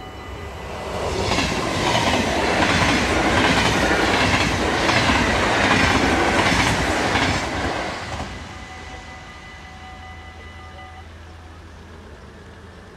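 An NS VIRM double-deck electric train passes the level crossing, its wheels rumbling and clacking over the rail joints, loudest from about one to eight seconds in. Under it the crossing's warning bell rings steadily and stops about eleven seconds in, as the barriers start to rise.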